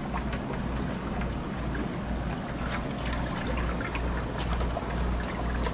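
Aerated live-shrimp tank bubbling and churning, with a steady low hum underneath. Small splashes and drips come as a hand net is dipped in and lifted out with live shrimp.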